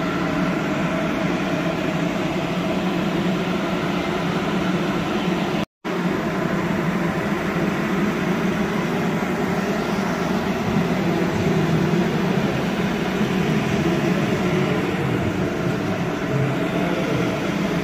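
Portable ducted ventilation fan running, a steady motor hum over rushing air. The sound cuts out for a moment about six seconds in.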